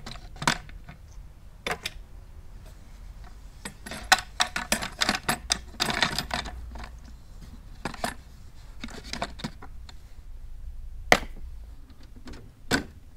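Wooden shelf panels being fitted onto an aluminium tripod: irregular clicks and knocks of wood against wood and metal, in clusters, with one louder knock near the end.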